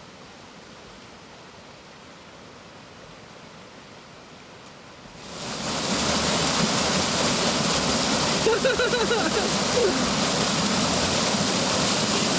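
River water pouring over rocks in a small waterfall: faint at first, then about five seconds in it swells sharply into a loud, steady rush heard close up.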